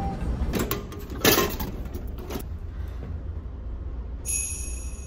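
Steady low hum of a passenger ferry's engines, with clicking and clatter of chopsticks and a plastic food tray between about half a second and two and a half seconds in, the loudest knock just over a second in. A brief high ringing tone sounds near the end.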